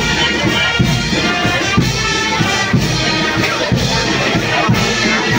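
A marching brass band playing a tune over a steady drumbeat.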